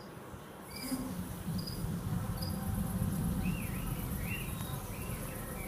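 Nature soundscape played over a venue's sound system: crickets chirping and short bird calls over a low rumble that swells about a second in.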